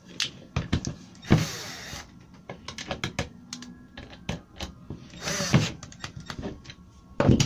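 Cordless drill-driver driving screws through a concealed cabinet hinge into a chipboard door: two short runs of the motor, about a second in and about five seconds in, with clicks and knocks of handling between and a louder knock near the end.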